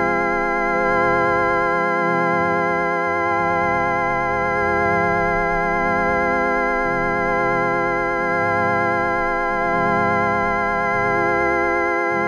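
A steady, organ-like electronic drone made of a fixed stack of evenly spaced tones, with the lower notes shifting every second or two: audio run through the 4ormulator vocoder effect.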